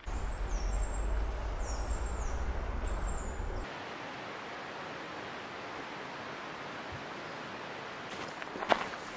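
Outdoor ambience: a steady rushing noise with a low wind rumble on the microphone and birds calling in short, falling chirps for the first three or so seconds, then a sudden change to an even, steady hiss. Footsteps start near the end.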